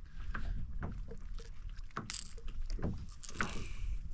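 Fishing reel being wound in while a hooked bream is fought to the kayak, with irregular clicks and short splashy noises over a low rumble.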